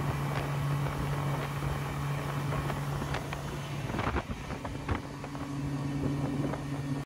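Outboard motor running steadily at speed, a low even hum, with wind and rushing water. A couple of brief knocks come about four and five seconds in.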